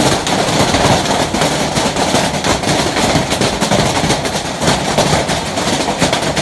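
Heavy, wind-driven hail falling hard: a loud, dense, unbroken clatter of countless small impacts.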